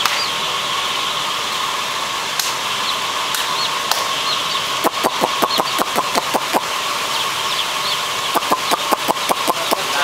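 A steady mechanical running, typical of an LPG space heater's burner and hot-air blower, under the continuous peeping of a large flock of day-old chicks. A run of sharp clicks starts about halfway through and comes thickest near the end.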